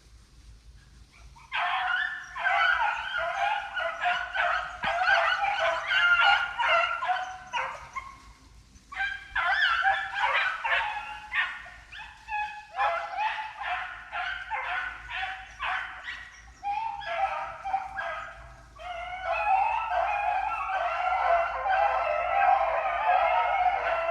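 A pack of rabbit hounds in full cry, many dogs baying and yelping together while running a rabbit's scent. The chorus breaks out suddenly a second or two in, dips briefly a few times, and swells again near the end.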